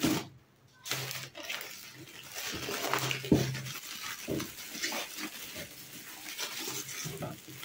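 Cellophane and foil gift wrapping crinkling and rustling as it is pulled and torn off a boxed toy, with a sharper crackle about three seconds in.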